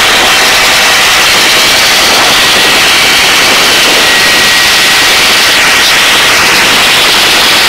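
Helicopter in a hover, heard from the cabin with the door open: a loud, even rushing noise with a faint steady whine, unchanging throughout.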